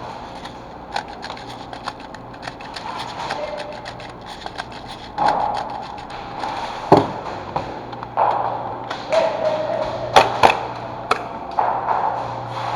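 Rustling and scuffing of a player moving during an airsoft game, with many small clicks throughout and a few sharp, loud cracks, the loudest about seven seconds in and three in quick succession around ten to eleven seconds in.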